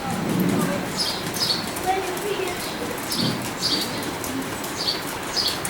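Small birds chirping: short, high, downward-sliding chirps repeated every half second or so, with faint voices underneath.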